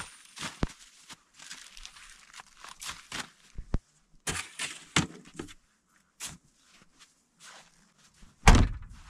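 Footsteps crunching in snow and camping gear being handled: irregular rustles, crunches and knocks as bags and a folding chair are set down, with one heavy thump near the end.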